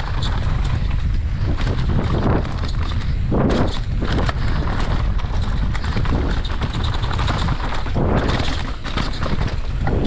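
Downhill mountain bike descending a dirt and rock trail: wind rushing over the microphone, tyres rolling and crunching over the dirt, and many short clicks and rattles from the bike over the bumps, with louder rushes about a third of the way in and again near the end.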